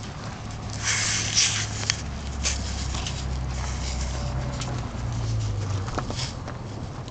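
Fire crackling in a metal burn barrel, with scattered sharp pops and a brief rush of noise about a second in. A low steady hum runs underneath.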